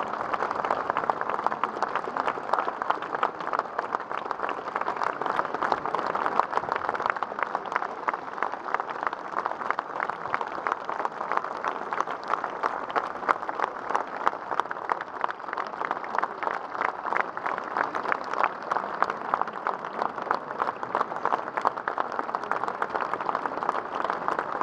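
A large concert crowd applauding: thousands of hands clapping in a dense, steady patter with no music playing.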